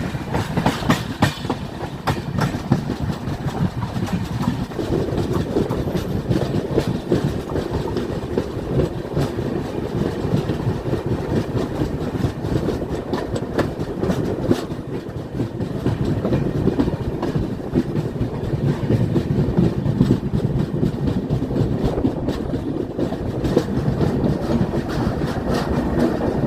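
Saraighat Express passenger train running on the track, its wheels clacking steadily over the rail joints.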